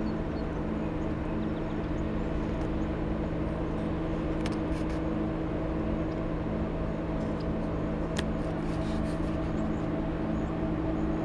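Steady low industrial hum from the ALCOA Massena West plant's machinery: several steady tones, one of them pulsing regularly, over a low rumble. The uploader takes it for the plant's infrasound and low-frequency noise.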